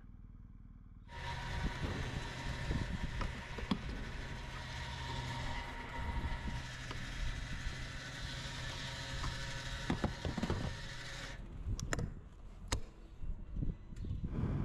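Petrol pump dispensing fuel through the nozzle into a motorcycle's tank: a steady rushing hiss with a faint whine, starting suddenly about a second in and cutting off about ten seconds later. A few sharp clicks and knocks follow near the end.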